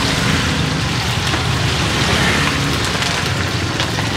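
Food deep-frying in hot oil: a dense, steady sizzle with many small crackles, over a low steady rumble.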